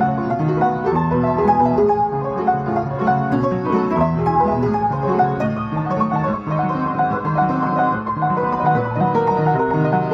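Solo piano playing a classical piece: a continuous, flowing passage of many notes.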